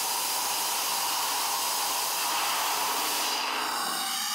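Compressed air hissing steadily through the inlet valve into a sealed hyperbaric oxygen chamber as it starts to pressurise. The hiss changes tone slightly about three seconds in.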